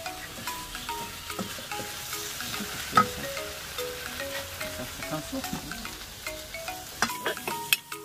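Stir-frying in a hot wok: chopped tomatoes and chillies sizzling in oil while a metal spatula scrapes and clanks against the pan. There is one sharp clank about three seconds in, and a quick run of clanks near the end.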